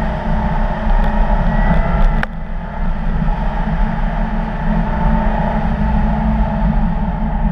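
Audi car driving on a snow-covered ice track, its engine and tyres running under a heavy, steady low rumble. A few sharp clicks come about one to two seconds in.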